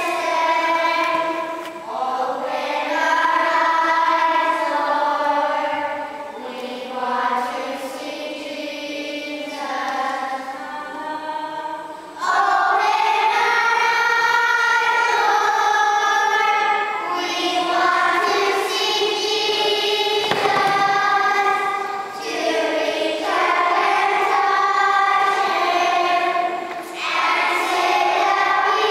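Children's choir singing long, held phrases together, softer at first and then louder from about twelve seconds in.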